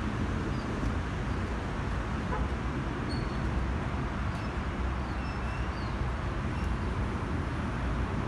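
Boeing 737-800 jet engines heard from the ground as a steady low rumble while the airliner flies overhead. A few short, faint bird chirps come through about halfway in.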